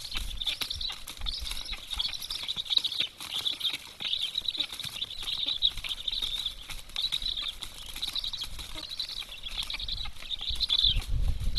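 Black storks at the nest during a feeding: wings flapping and scuffling on the nest sticks, over a run of high rasping calls repeated about twice a second, with a few heavier low thumps near the end.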